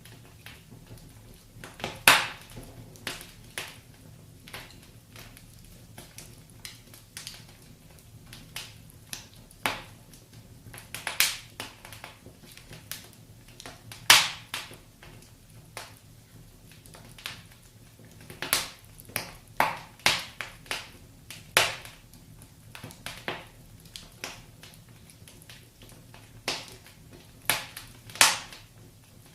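Wood fire crackling, with irregular sharp pops and snaps, the loudest about two seconds in and again about fourteen seconds in, over a faint steady low rumble.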